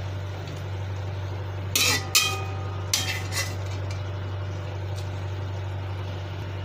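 Metal ladle scraping and knocking in a metal frying pan while scooping out fried shallots. A few sharp clinks with brief ringing come about two seconds in and again around three seconds in, over a steady low hum.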